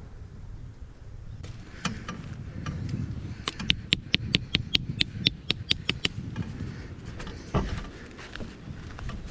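A fast, even run of about a dozen sharp tool strikes on wood, roughly five a second, with scattered knocks before it and one heavier knock later. Wind rumbles on the microphone throughout.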